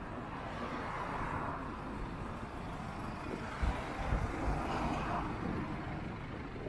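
Street traffic: vehicles passing, their tyre and engine noise swelling and fading twice, with a few short low thumps about four seconds in.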